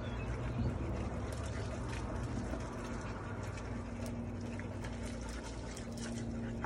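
Garden hose running, its water spraying and splashing as a dog is rinsed, with a steady low hum underneath.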